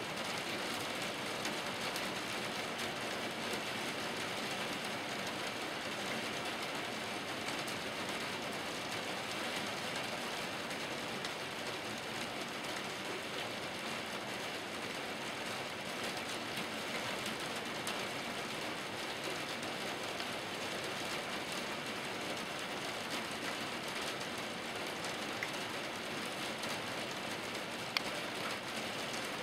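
Steady rain drumming on a surface: a dense, even patter of drops, with one sharper tap near the end.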